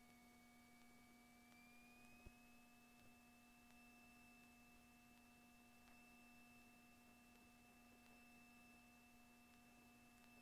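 Near silence: only faint steady electronic tones, the highest drifting slightly up in pitch about two seconds in.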